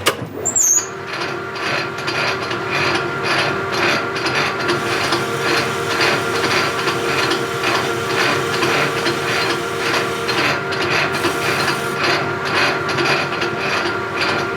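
South Bend 13 metal lathe running under power during a light finishing pass, its gear train giving a steady whine with a fast, even rhythmic clatter. It cuts off suddenly at the end.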